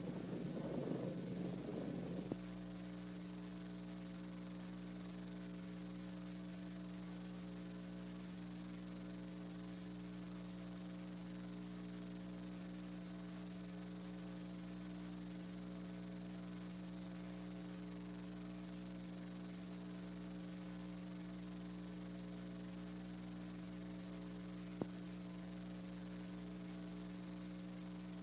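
Steady electrical mains hum with a light hiss. A louder, rougher noise in the first two seconds cuts off suddenly, and there is a single click near the end.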